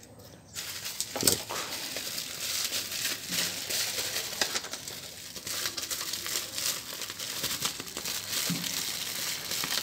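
Plastic bubble-wrap pouch crinkling and crackling as it is handled and lifted out of a box tray, with a single light knock about a second in.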